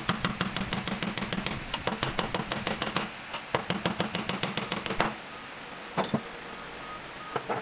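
Rapid sharp metal knocking on a driveshaft clamped upright in a bench vise, about eight knocks a second in two runs broken by a short pause, then a few single knocks near the end.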